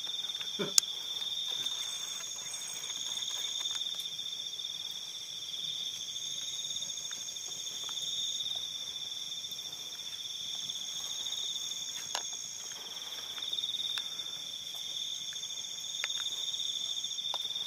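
Steady chorus of night insects trilling at two pitches, the higher trill swelling and fading every few seconds. A single sharp click sounds about a second in.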